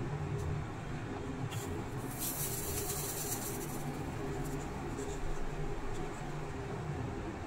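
Steady low hum in the background, with a scratchy rubbing noise about two seconds in that lasts about a second and a half, like a circuit board being handled.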